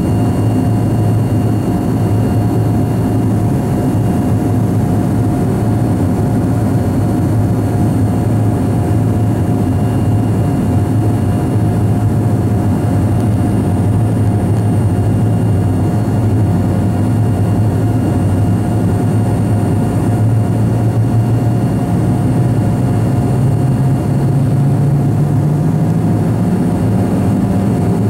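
Cabin noise of a BAe 146-100 climbing after takeoff: its Lycoming ALF502 turbofans give a loud, steady drone with a low hum and thin steady whines above it, heard inside the cabin. Over the last several seconds the low hum slowly rises in pitch.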